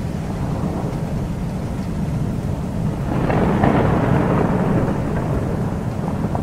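Summer thunderstorm: a steady low rumble of thunder over rain, swelling into a louder peal about three seconds in that dies back over the next two seconds.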